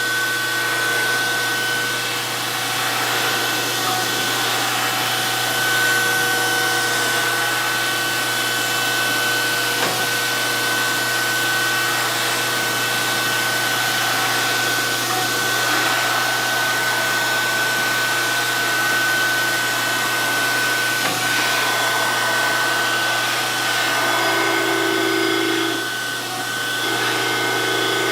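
DoAll 14-inch surface grinder running steadily, its spinning wheel and spindle giving a constant high whine over a hiss and motor hum as it passes over a Kurt vise part. A lower hum comes in twice near the end.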